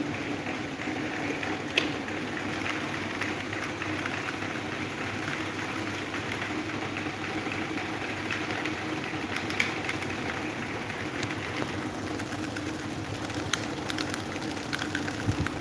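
Electric table fan running steadily, its motor humming under the rush of the blades, with a few faint clicks now and then.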